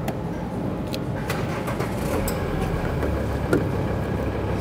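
A steady low rumble, like a vehicle engine running, with a few light clicks and knocks of hands working plastic wiring connectors and trim.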